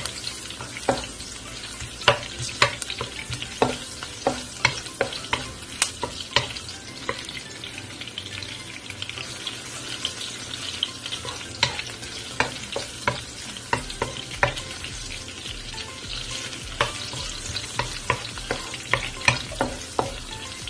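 Chopped garlic sizzling in a little oil in a nonstick wok: a steady frying hiss, with frequent sharp taps and scrapes from a wooden utensil stirring against the pan.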